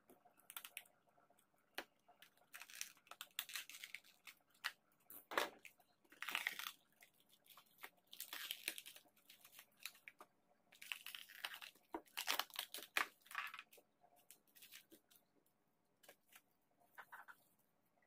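Clear plastic mould strip being peeled and torn away from the side of a cured epoxy resin casting: several crinkling, tearing pulls, with a few sharp clicks between them.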